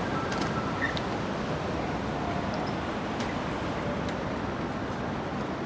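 Steady rushing noise of wind and street traffic while cycling, with a few faint clicks.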